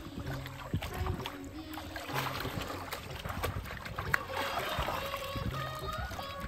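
Shallow river water splashing and sloshing as woven bamboo baskets are dipped, dragged and lifted through it, with short splashes throughout, over soft background music.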